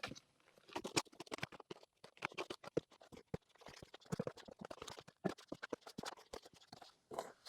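Sifted dust-bath mix being stirred in a cement mixing tub: an irregular run of short gritty scratches and scrapes with brief pauses.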